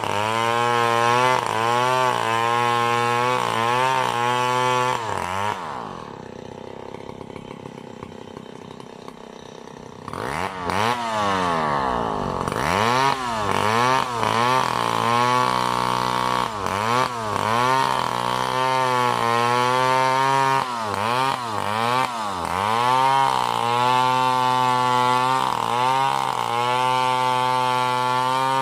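STIHL gasoline chainsaw cutting lengthwise along a coconut palm trunk, its engine pitch wavering up and down under load. About five seconds in it eases off to idle for roughly four seconds, then revs back up and carries on cutting.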